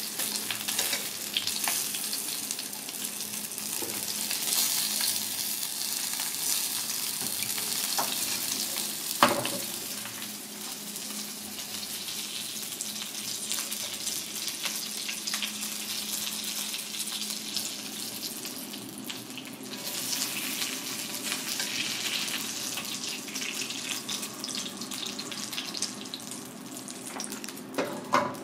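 Batfish cutlets sizzling in oil in a shallow frying pan, a steady hiss throughout. A single sharp knock sounds about a third of the way in and a smaller click near the end.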